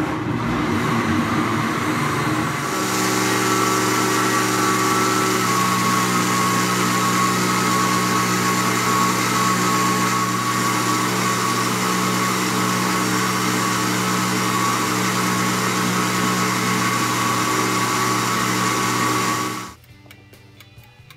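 Countertop blender running, blending carrot cake batter: a loud steady motor hum whose sound shifts and settles about three seconds in, then stops abruptly near the end when switched off.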